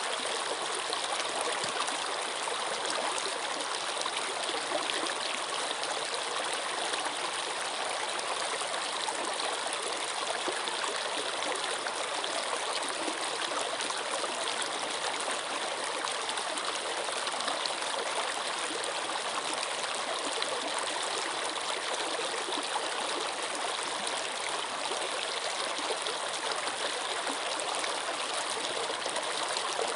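Flowing water: a steady, even rush with no pauses or changes.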